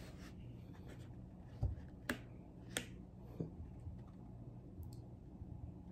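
A quiet room with a soft low thump, then two sharp clicks about half a second apart and a few fainter clicks after.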